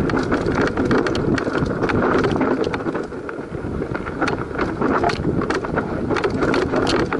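Enduro mountain bike descending loose, rocky singletrack at speed: tyres crunching over stones and the bike rattling, with frequent sharp knocks from the rough ground, under steady wind rush on the microphone.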